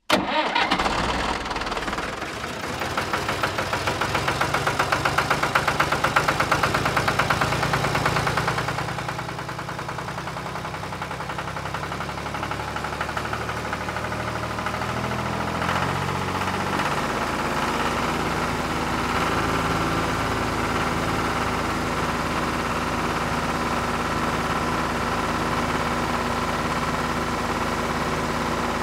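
Tractor engine starting and running with a rhythmic beat. It is louder for the first eight seconds or so, then settles to a steady, even run.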